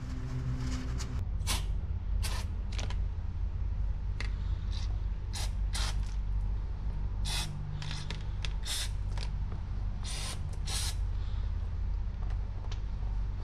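Aerosol can of brake cleaner sprayed in about a dozen short hissing bursts over a steady low hum.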